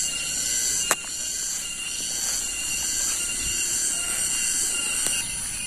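Cicadas (tonggeret) droning in a steady, high-pitched chorus, with one sharp click about a second in.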